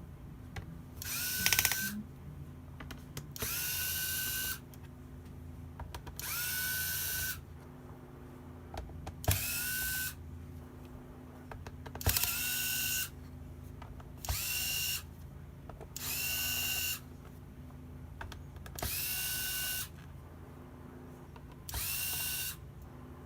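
Small electric screwdriver run in short bursts of about a second, nine times. Each burst spins up with a quick rising whine, then holds steady until it stops.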